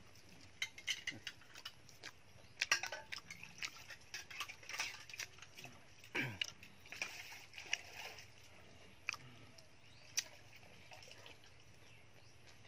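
Close-up wet chewing and lip-smacking of someone eating a crispy pork pancake wrapped in a raw cabbage leaf with herbs: irregular short clicks and smacks. There is one brief falling tone about six seconds in.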